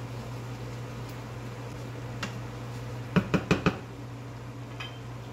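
A wooden spoon knocked four times in quick succession against the rim of a nonstick frying pan, with a couple of fainter clicks around it, over a low steady hum.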